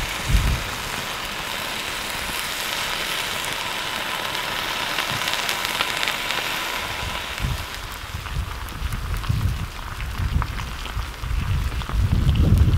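Steady hiss with fine crackling from advancing pahoehoe lava and the vegetation burning at its edge. Low wind rumble on the microphone comes in over the second half.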